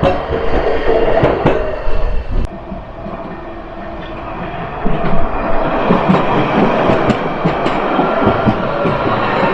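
Tram running on its rails, with clicking from the wheels over the track and a steady hum. The sound eases off about two and a half seconds in and builds again about five seconds in.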